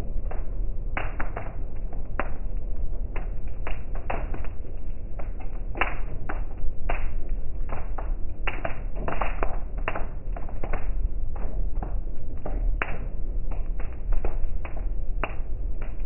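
Raindrops tapping irregularly and densely on a car's roof and windshield, heard from inside the cabin, over a steady low rumble of the moving car.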